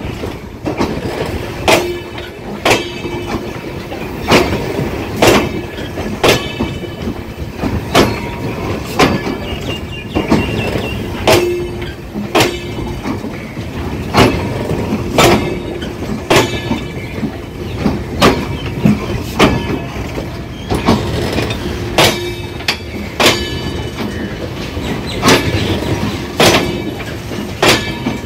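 Passenger coach wheels clattering over rail joints as a train rolls past, a regular clickety-clack of sharp clacks, often in pairs, about once a second over a steady rumble.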